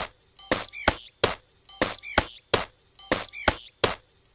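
Cartoon jumping sound effects: sharp thumps in quick groups of three, repeating about every second and a half, with short squeaky chirps among them.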